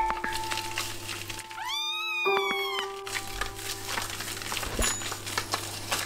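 A very young kitten gives one long meow about two seconds in, rising and then falling in pitch, while it is held wet in a sink for a medicated bath.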